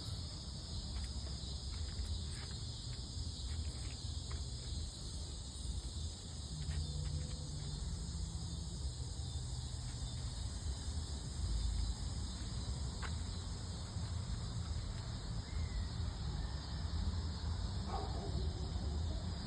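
Steady background noise: a constant high chirr over a low rumble, with a few faint clicks.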